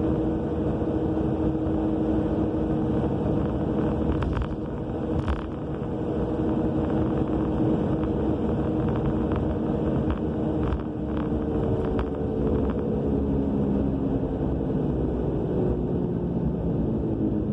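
A 2000 Subaru Legacy AWD on the move, heard from inside the car: a steady loud roar with a humming drone from the rear end. The hum's pitch slowly falls through the second half as the car slows. The owner cannot trace the noise: the rear wheel bearing, brakes, calipers and rotors are all new.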